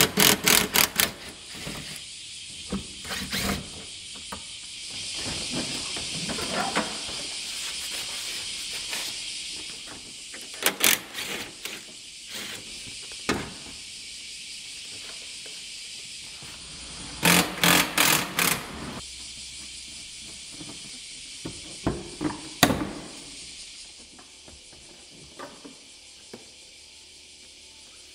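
Cordless electric ratchet running off the headlight mounting bolts in several short bursts of rapid clicking, the longest about 17 seconds in, over a steady background hiss.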